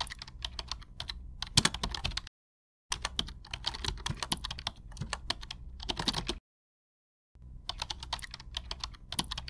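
Computer keyboard typing sound effect: three runs of rapid keystroke clicks, each cut off sharply into silence, with breaks at about two seconds in and about six and a half seconds in.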